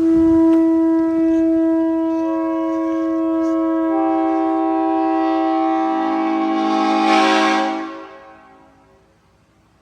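Oldcast Nathan Airchime P01235 five-chime train horn blowing one long chord. Its bells come in one after another over the first six seconds, so the chord grows fuller, and it is loudest just before it cuts off about eight seconds in.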